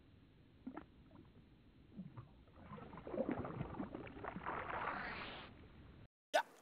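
Water splashing and lapping, with a few small splashes early on and a busier flurry of splashing in the middle. A single sharp click comes near the end.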